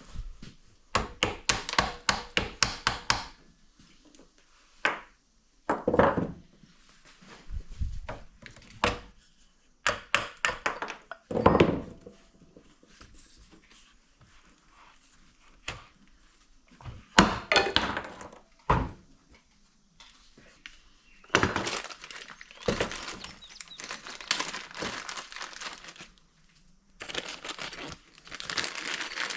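Irregular clicks, rattles and thunks of parts and tools being handled while a new handle and shoulder strap are fitted to a Husqvarna 326L string trimmer, with stretches of rustling in the second half.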